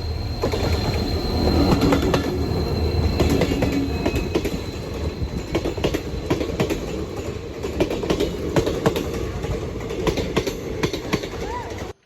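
A train passing close by on the railway track, its wheels clattering over the rails in a dense, steady run of clicks for the whole stretch, cutting off suddenly at the end.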